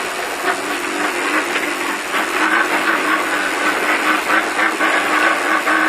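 Off-road race car running over rough desert terrain: a steady engine drone under constant noise, broken by frequent rattles and knocks from the chassis.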